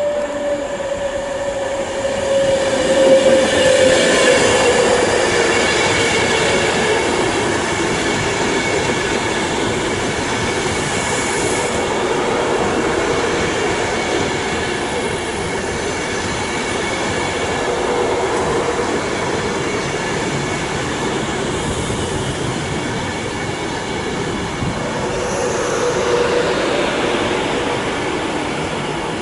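A train running through the station: a steady rush of wheels on rail with several steady high whining tones, and a lower tone that falls in pitch over the first few seconds. It is loudest about three to five seconds in.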